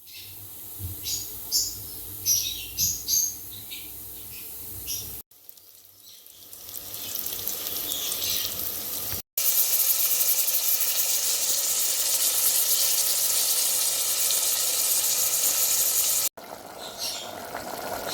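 Pumpkin frying in hot oil: a steady sizzle that is loudest in the middle, broken by sudden cuts. Short, sharp, high-pitched sounds come near the start and near the end.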